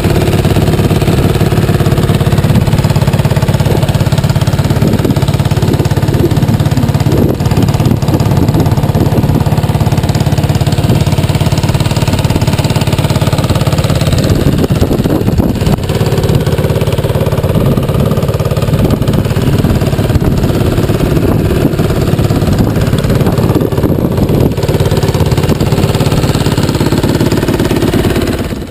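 2007 Aprilia SXV 450's 450 cc V-twin engine idling steadily through its stock exhaust.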